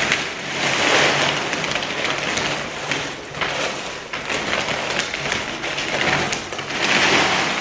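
Expanded clay pebbles pouring out of a plastic bag onto a heap of potting soil: a steady stream of many small clicks that swells about a second in and again near the end.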